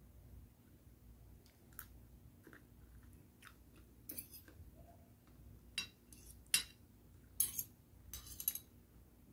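A person eating with a spoon and fork: chewing, with a scattering of short sharp clicks that grow louder and more frequent in the second half.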